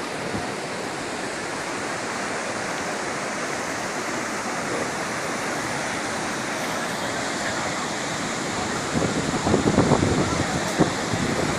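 Purwa waterfall's water rushing steadily. About nine seconds in, a louder, uneven rumble swells for about two seconds.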